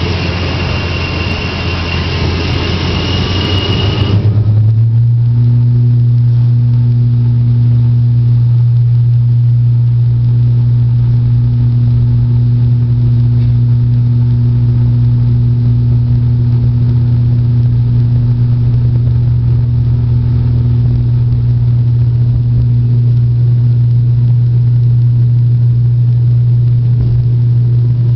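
Turboprop airliner's engine and propeller at takeoff power, heard from the cabin during the takeoff run and climb-out. A loud rushing noise with a high whine gives way suddenly, about four seconds in, to a steady deep propeller drone that holds unchanged.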